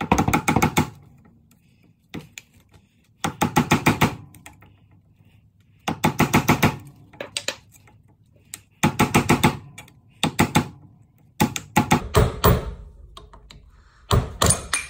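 Screwdriver being bashed against a golf cart's metal hub dust cap to knock it loose: short bursts of rapid metal-on-metal knocks, about seven bursts a second or two apart.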